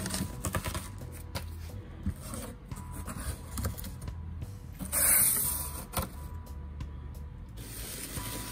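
Foam packing peanuts rustling and shifting as a hand digs through them in a cardboard box, with cardboard rubbing and scraping. The rustling comes in irregular clicks, and the loudest burst is about five seconds in.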